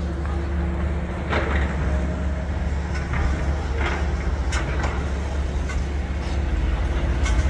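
Building-site noise: an engine running with a steady low drone, and a few scattered knocks and clatters over it.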